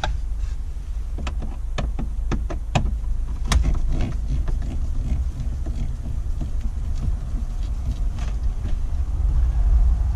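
Scattered clicks and taps from tools and plastic dash trim being worked on around the glove box screws, over a steady low rumble.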